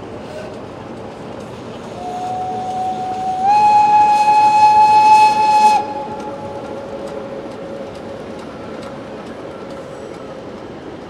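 Steam locomotive whistle blowing for about four seconds: it starts softer, jumps to a higher, louder pitch about a second and a half in, then cuts off sharply. Under it, the steady running noise of the passing train.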